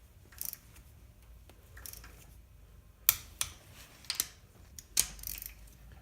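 Torque wrench on an LQ4 V8's cylinder-head bolts: short bursts of ratcheting and several sharp clicks as the bolts are brought up to 22 ft-lb, the first pass of the head-bolt torque sequence.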